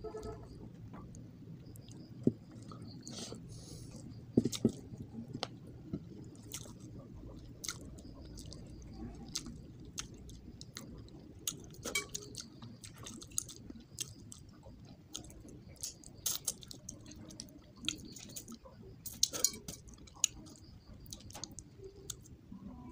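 Close-up chewing and mouth sounds of a person eating rice and fish head by hand, with many short sharp clicks and smacks scattered throughout. Fingers mix and scoop rice on a metal plate, over a low steady background hum.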